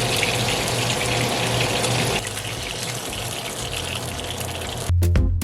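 Shark slices frying in hot oil: a steady, crackling sizzle. Rhythmic music cuts in about five seconds in.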